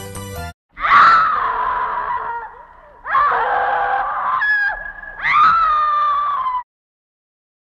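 A person screaming three times, each scream about a second and a half long and falling in pitch, with short pauses between them.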